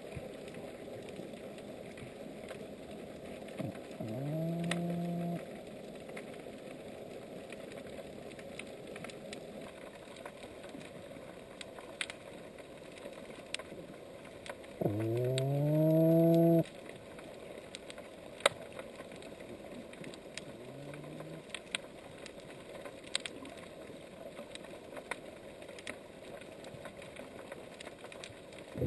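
Underwater recording of an unidentified marine animal, a fish or a marine mammal, calling: three low, pitched calls that each sweep upward and then hold, the second, about fifteen seconds in, the loudest and longest at nearly two seconds, the last short and faint. Scattered sharp clicks sound throughout.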